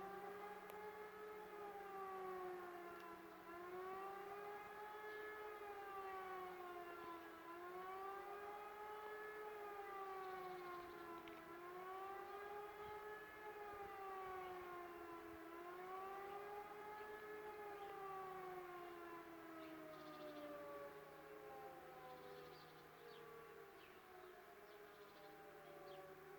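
Civil-defence warning siren sounding the wailing population-warning tone for a test alarm, its pitch rising and falling about every four seconds. Near the end the pitch falls in one long glide as the siren winds down.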